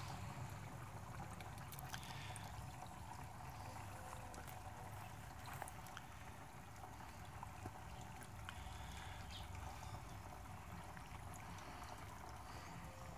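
Wood fire burning inside a small steel tent stove, heard as a faint steady rush with scattered small crackles; it is the stove's first burn, cooking off its paint.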